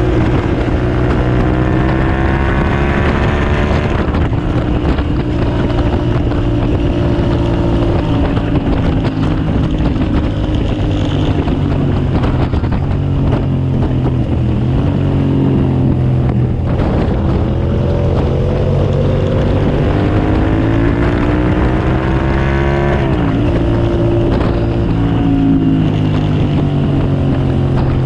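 2007 Suzuki SV650S's 645 cc V-twin engine running hard under load at speed, its pitch climbing in a long pull for the first few seconds and dropping sharply, holding fairly steady through the middle, then climbing again and dropping sharply once more near the end.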